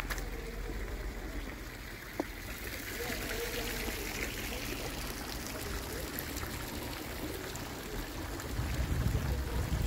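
Fountain water splashing and trickling steadily into a stone basin, with a single short click about two seconds in and a low rumble that swells near the end.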